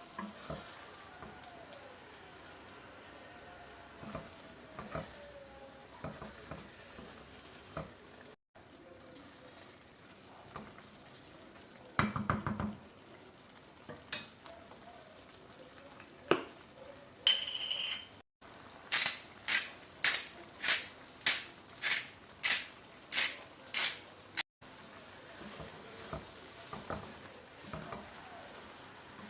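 Kitchen cooking sounds: food sizzling in a pan as it is stirred, with scattered utensil clinks and scrapes. In the later part comes a quick run of about a dozen sharp knocks, two or three a second.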